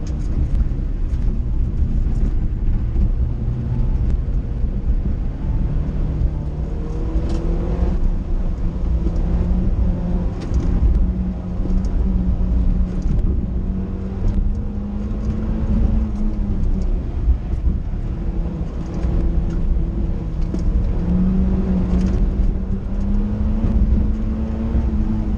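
Toyota Sera's 1.5-litre four-cylinder engine repeatedly revving up and easing off on an autocross run, over a heavy low rumble of road and wind noise, with a few short clicks.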